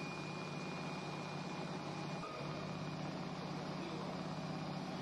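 Automatic CNC sewing and perforation machine running: a steady mechanical hum with a fine, rapid clatter from the needle head punching holes, briefly dipping about two seconds in.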